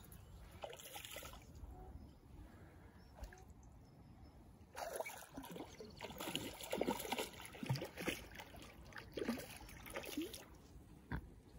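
Lake water splashing and trickling in a run of short, small splashes and gurgles, busiest from about five seconds in until near the end.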